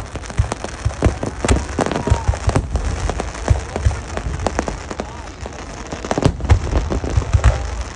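Aerial fireworks: dense, rapid crackling of sparking shells, like heavy rain, over irregular low booms of shells bursting.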